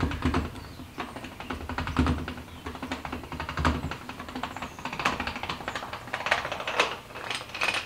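Bottle jack being lowered: a metal jack handle clicking and rattling as the jack's release is twisted, with a few dull thuds.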